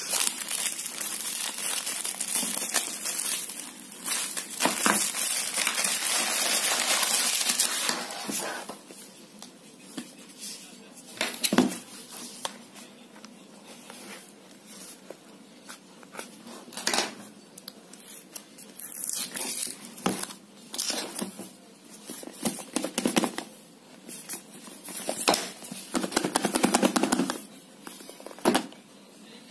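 Plastic packaging crinkling and tearing as a courier mailer and clear wrap are pulled off a phone box, loud and dense for the first eight seconds or so. After that come scattered rustles and sharp handling knocks as the wrap is cut with scissors and the cardboard box is turned over.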